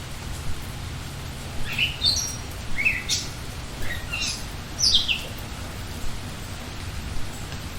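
A songbird singing a short phrase of quick chirps and sweeping notes, from about a second and a half in to about five seconds in, over a steady hiss of falling rain.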